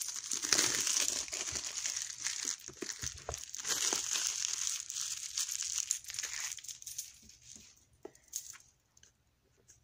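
Crinkling and crumpling of the clear plastic shrink-wrap being peeled off a boxed card deck, for about six seconds, with scattered light clicks; it then dies away to a few faint taps.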